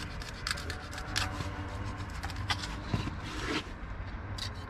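Knife sawing through a conger eel's body and backbone: several short scraping strokes as the blade cuts a steak.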